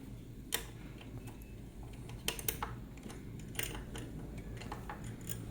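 A hex L-key (Allen key) turning out a small screw on a haematology analyser's CRP chamber: a few scattered, irregular light metal clicks and ticks, over a faint steady low hum.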